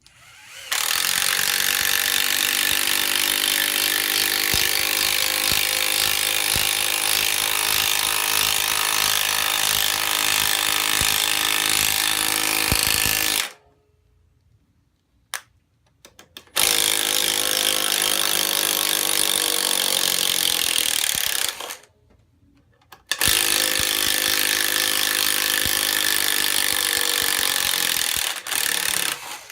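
Ridgid R8224 12-volt palm impact driver running in three long bursts, a loud steady hammering rattle each time, with short clicks in the gaps between bursts.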